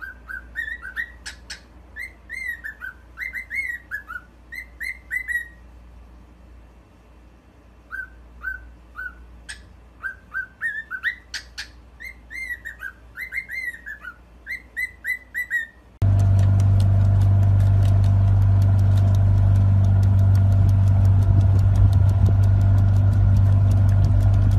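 Cockatiel chirping at its reflection in quick bursts of short up-and-down chirps, with a pause of a few seconds partway through. About two-thirds of the way in, this gives way to the louder, steady low hum of a motorboat's engine running under way.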